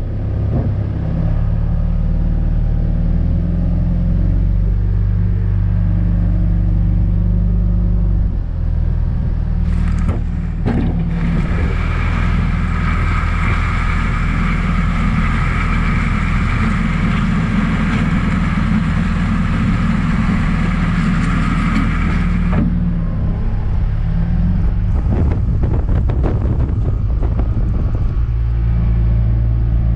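John Deere 310G backhoe's diesel engine running steadily while it works the ground. For about twelve seconds in the middle it runs harder, with a higher-pitched layer over the engine note, then drops back suddenly.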